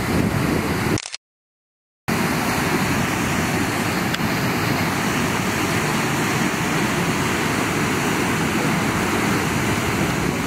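Steady rushing of flowing water, a loud even roar. About a second in it drops out to dead silence for about a second, then resumes unchanged.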